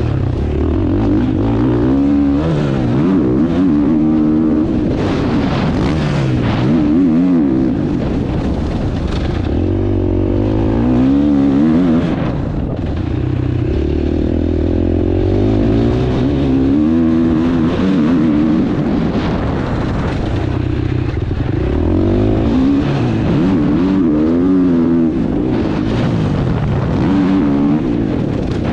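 Husqvarna motocross bike's engine heard from on board, revving up and dropping back again and again as the throttle is opened and shut.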